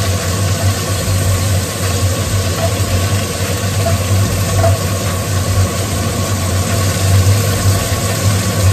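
A steady low motor hum with an even hiss over it, unbroken throughout.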